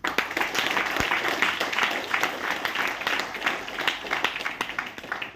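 Audience applauding: many hands clapping at once, starting abruptly and dying away near the end.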